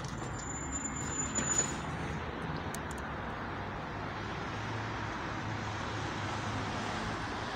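Steady outdoor city background noise with distant road traffic. A few sharp clicks from the phone being handled come in the first two seconds.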